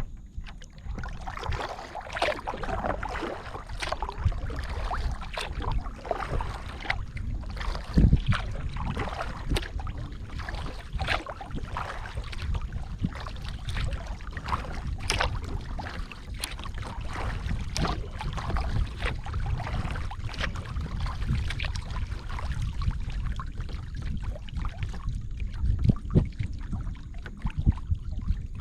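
Kayak paddling: the paddle blades dipping and splashing in the water in an irregular run of splashes and drips, over a steady low rumble.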